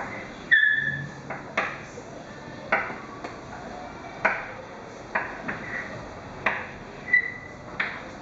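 Chalk tapping and scraping on a blackboard in irregular sharp strokes as figures are written, with two short high squeaks, one about half a second in and one near the end.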